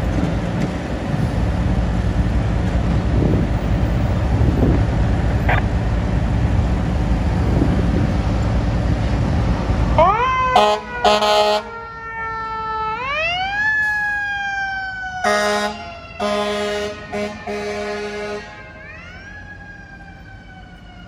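For the first half, wind rumbles on the microphone. About halfway in, fire apparatus start sounding off as they respond: a siren wails twice, rising and then slowly winding down, between several short air horn blasts.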